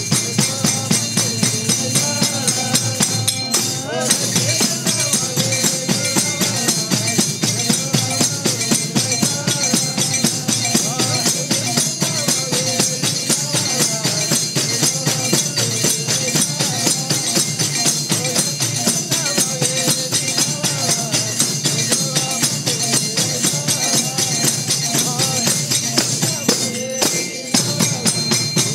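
Devotional bhajan music: a wavering melody line over a steady quick beat of jingling hand percussion and drum, with a brief break near the end.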